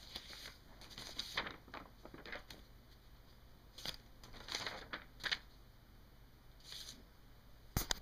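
Pen scratching on notebook paper in short, irregular writing strokes, with a sharp click near the end.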